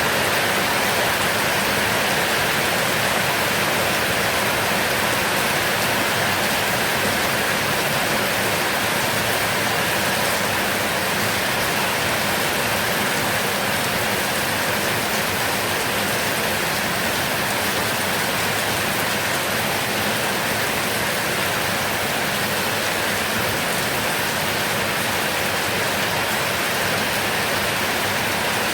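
Heavy rain falling steadily, a dense even hiss with no thunder.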